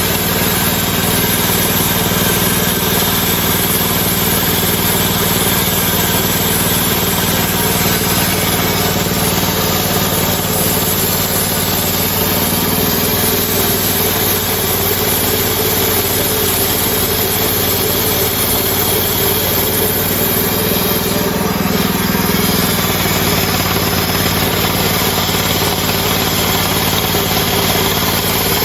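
Hudson Oscar portable band sawmill's engine running steadily through its first cut into a log, its note shifting slightly twice along the way.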